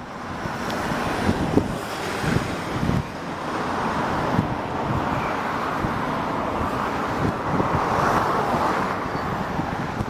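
Wind buffeting the microphone over the hiss of road traffic, with a vehicle going by that swells and fades in the second half.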